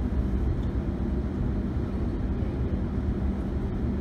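Sydney suburban train running at speed, heard from inside the carriage: a steady low rumble of wheels on the track and the car in motion.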